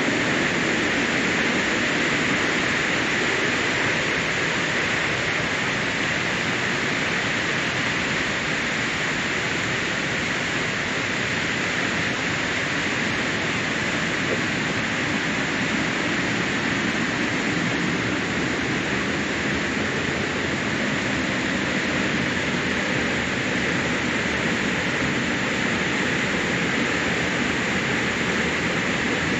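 Water rushing steadily over and out of a check dam, a continuous even roar.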